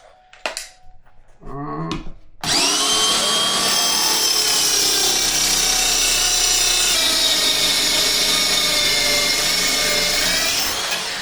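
A power saw starts abruptly about two seconds in and runs steadily with a high whine as it makes a shallow 20 mm cut through two clamped flat-pack cabinet side panels, scoring a line for a second cut; it winds down near the end. A few small knocks come before it starts.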